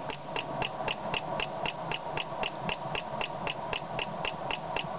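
Home-built electric fence pulse circuit running, with a 555 timer switching an ignition coil: a steady train of sharp clicks at about four a second, over a faint hum.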